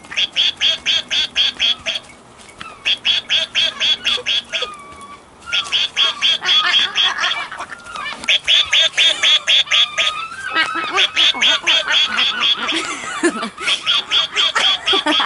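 Quacking in rapid, evenly spaced bursts, about eight quacks a second, each burst lasting one to two seconds with short pauses between.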